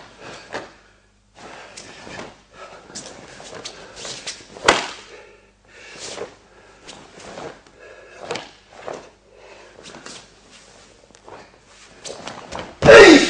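Karate kata performed on a mat: the gi snapping with each technique and bare feet slapping and shuffling, with one sharp snap about four and a half seconds in. Near the end a short, loud shout with a falling pitch, the kata's kiai.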